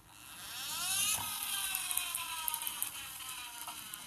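Toy dump truck whirring as it is pushed along: a whine that rises in pitch for about a second, then falls slowly as the truck rolls away.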